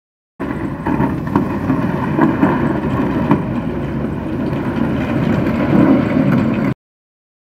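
An engine running steadily, with wind buffeting the microphone; it starts abruptly and stops abruptly near the end.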